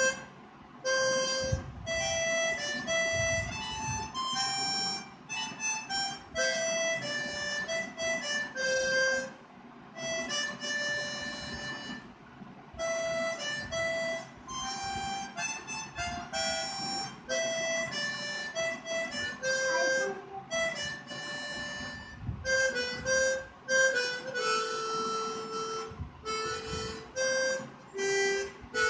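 Suzuki Songstar SCN-48 chromatic harmonica in C playing a melody of held single notes with short breaks between phrases.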